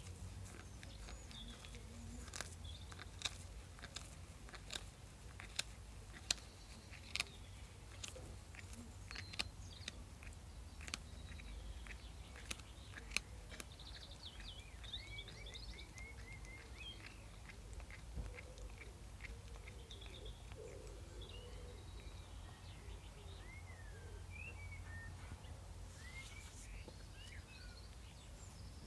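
A pet crunching and chewing a snack: sharp, irregular crunches through the first half, then short chirping calls in the second half.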